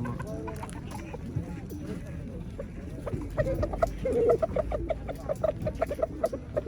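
Chickens clucking: a rapid run of short repeated clucks from several birds, busiest from about three and a half seconds in.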